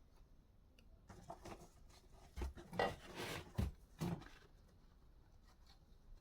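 Paper and cardboard packaging being handled: rustling and scraping with a few dull knocks, between about one and four and a half seconds in.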